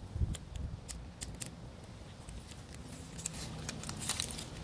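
Handling noise: scattered light clicks and rustles as something is handled, with a soft low bump about a quarter second in.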